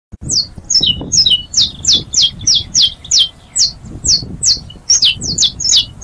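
Saffron finch singing: a rapid series of short, sharp notes, each falling steeply in pitch, about three a second.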